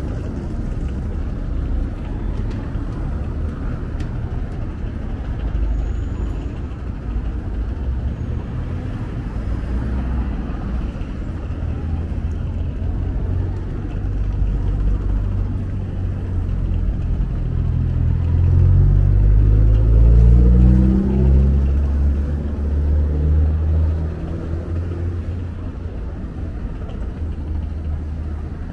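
Steady low rumble of city street traffic. Past the middle, a motor vehicle's engine grows louder and rises in pitch as it accelerates close by, then fades back into the traffic rumble.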